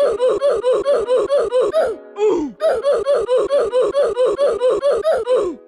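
Rapid, high-pitched laughter: a steady string of short 'ha' syllables, about six a second, each dropping in pitch. There is a brief break about two seconds in, then it goes on.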